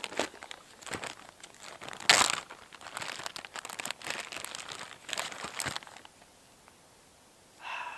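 Plastic Ziploc bag crinkling and rustling as a beer can is handled and pulled out of it, with one louder crinkle about two seconds in. The handling stops about six seconds in.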